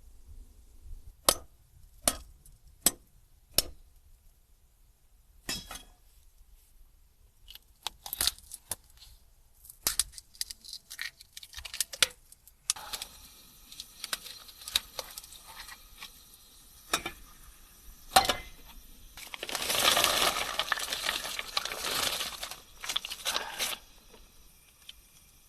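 Camping gear being handled and packed: a run of sharp clicks and small clinks, then a long stretch of rustling and crinkling, loudest near the end.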